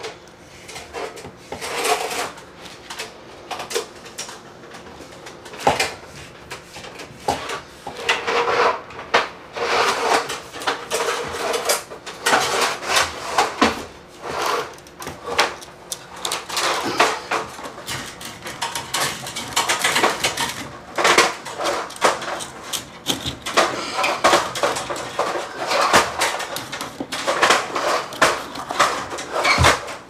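Steel fish tape being forced through a conduit, scraping and rattling in a dense, irregular run of metallic clatters.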